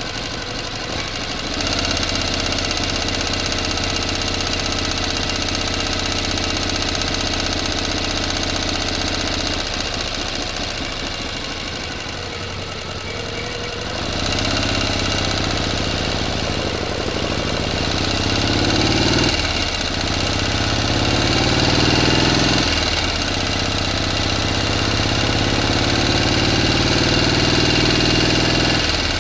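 A motor engine running steadily, stepping up a little louder shortly after the start. From about halfway it is revved three times, each time its pitch climbing slowly and then dropping back sharply.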